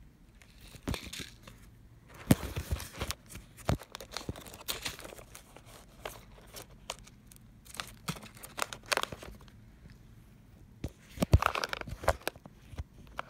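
Close handling of a quilted leather flap handbag and the clear plastic film inside it: irregular rustles and clicks, with a louder run of rustling near the end.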